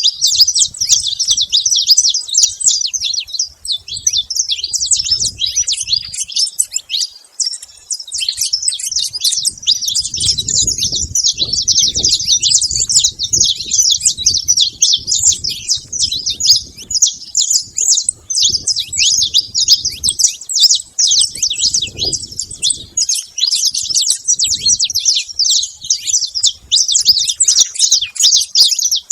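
Saffron finch song: a dense, unbroken stream of rapid high chirps and trills, very busy.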